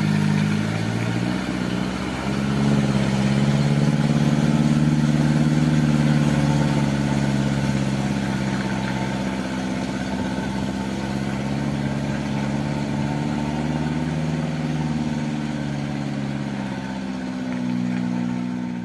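Heavy construction machine's engine running steadily, its pitch rising and falling slightly as it works, growing louder a couple of seconds in and then easing off slowly.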